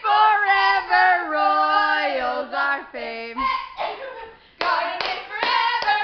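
Female voices singing the held, downward-stepping last notes of a school fight song, followed near the end by a few sharp hand claps.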